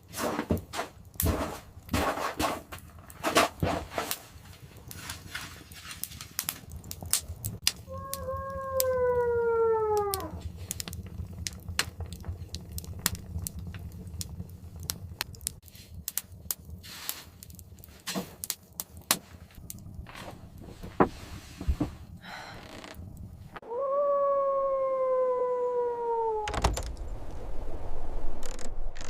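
A canine howls twice, each howl a long call of about two and a half seconds that slides down in pitch. Underneath are a low rumble and scattered sharp clicks and knocks.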